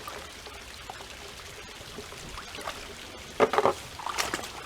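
Steady trickle of water running down a granite face into a pool, with two louder splashes of water past the middle.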